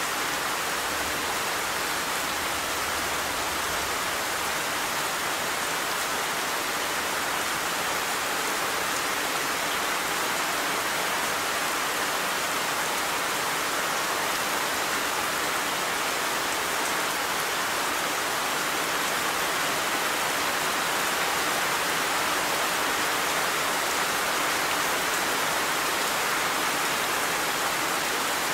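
Steady rain falling, an even hiss of many drops on surfaces that keeps the same strength throughout.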